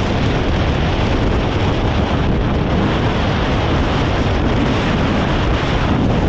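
Strong wind blowing over the microphone: loud, steady wind noise.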